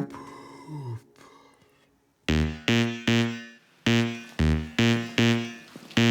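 Electronic backing beat. A synth sound fades away, there is a short near-silent gap, and about two seconds in a punchy synth bass riff begins in short repeated stabs.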